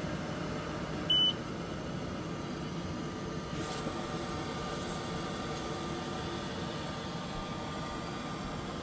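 xTool F1 laser engraver running, a steady fan hiss with a faint hum, with one short high electronic beep about a second in.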